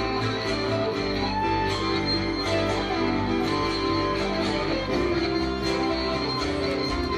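Live band playing an instrumental passage: electric guitar lead over acoustic guitar and keyboards, with regular strummed or struck strokes keeping the beat.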